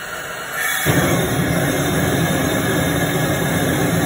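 Gas ring burner hissing, then about a second in the flame catches across the whole ring and burns with a loud, steady rush.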